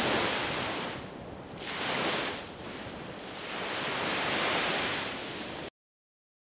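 Pacific surf breaking and washing up a sandy beach, swelling and falling back three times. The sound cuts off suddenly near the end, leaving silence.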